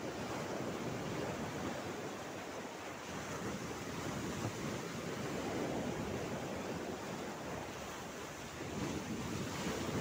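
Small Red Sea waves lapping and washing over a rocky shoreline and pebble beach: a steady wash of surf that rises and falls gently every few seconds.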